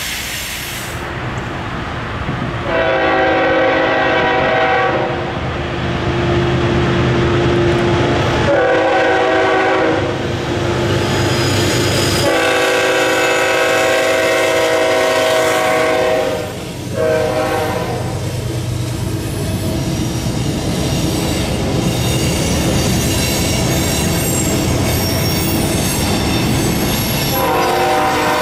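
CSX ES44AH diesel locomotive's horn sounding three long blasts in the first sixteen seconds, typical of a grade-crossing warning, over the rumble of the passing train. Between blasts the loaded coal cars run by with wheel clatter and some squeal. The horn sounds again near the end.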